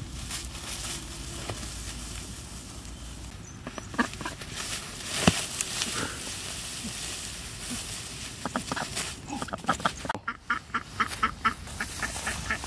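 A duck quacking: a few calls about four seconds in, then a rapid run of quacks over the last four seconds, over the rustle of dry rice straw being crawled through.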